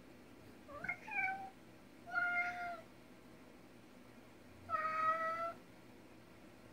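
Domestic cat meowing three times: the first call about a second in, rising in pitch, then two steadier meows, the last near the five-second mark.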